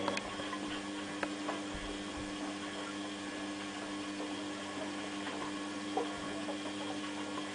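Beko WMA642 washing machine running early in its spin programme: a steady two-tone hum with a few light clicks.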